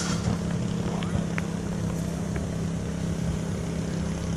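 A 23-90 Baker steam traction engine driving a Baker fan through a long flat belt, working under load. It makes a steady, even drone with a low hum that does not change.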